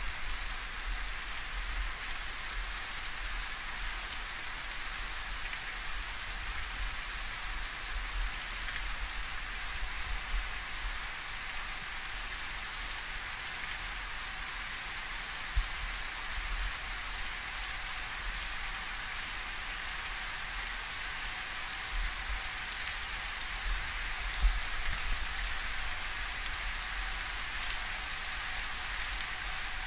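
Steady rain falling in a weak thunderstorm, an even hiss, with a couple of brief sharp ticks about halfway through and later on.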